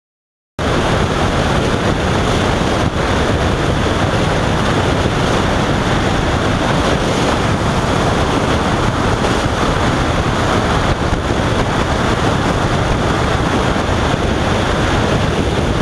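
Steady loud wind rush on a motorcycle rider's helmet camera at highway speed, with the motorcycle's engine and tyre noise blended underneath. It starts abruptly about half a second in, after silence.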